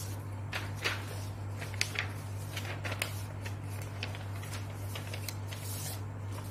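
Paper sheets rustling and crackling as handwritten pages are moved and laid out, in short irregular crackles, over a steady low hum.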